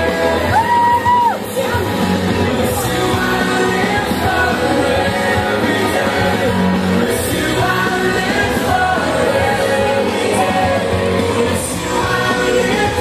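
Loud music with voices singing. One voice holds a high shout or whoop about a second in.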